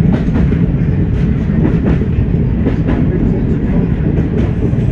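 Class 104 diesel multiple unit under way, heard from the driving cab: a steady, heavy rumble of its underfloor diesel engines and running gear, with irregular sharp clicks as the wheels run over the track.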